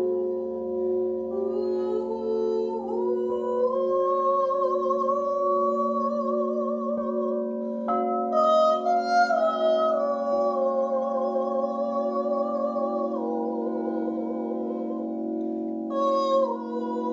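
Alchemy crystal singing bowls ringing together in steady, overlapping sustained tones, with a woman's voice toning wordlessly over them, sliding up and down in pitch with a slow waver.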